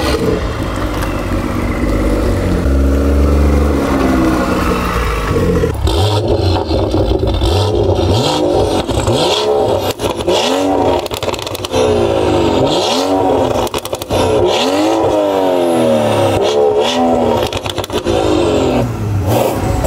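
BMW X3 M40i's 3.0-litre turbocharged B58 straight-six running through an aftermarket valved sport exhaust with free-flow downpipes. The engine runs steadily at first, with a few stepped changes in pitch. From about eight seconds in it is revved over and over, the pitch climbing and dropping quickly each time.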